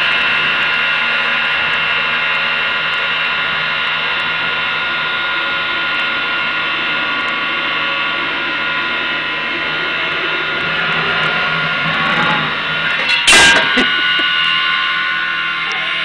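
Steady rushing noise of a lit double-walled stove burning, with one sharp knock about three quarters of the way through.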